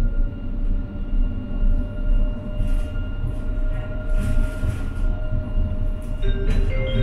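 Interior of a moving electric tram: a steady low rumble from the wheels and running gear with a constant electric whine from the drive. A few higher tones come in near the end.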